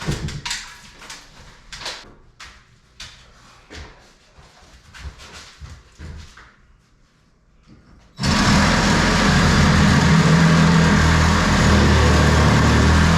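Light knocks and taps of handling, then about eight seconds in a power saw starts and runs steadily at full speed, cutting.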